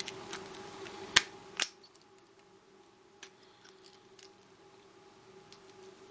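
Small metal clicks from a cheap pin-tumbler lock with a broken cam and its key being handled: two sharp clicks between one and two seconds in, then faint scattered ticks.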